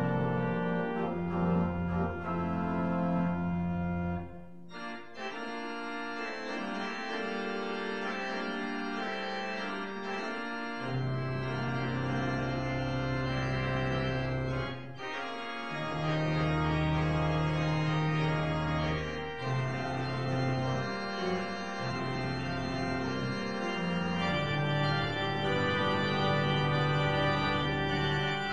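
Organ playing a postlude in sustained chords over long held bass notes; the deep bass drops out about four seconds in and comes back about eleven seconds in.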